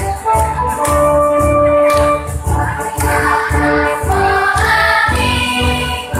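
Children's choir singing a march-style hymn to electronic keyboard accompaniment with a steady beat of about two a second; held keyboard notes lead in the first half, and the voices come in strongly about halfway through.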